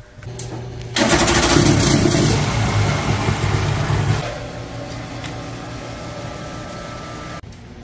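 Portable engine-driven water pump starting with a sudden loud burst about a second in and running hard for about three seconds. A steadier, quieter machine run follows and cuts off sharply near the end.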